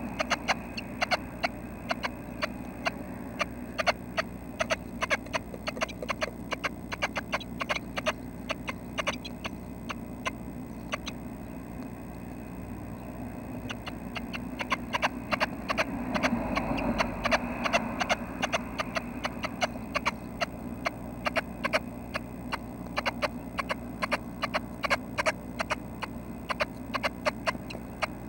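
Rapid, irregular clicks and taps, several a second, inside a nest box holding red-breasted nuthatch nestlings, over a steady hum.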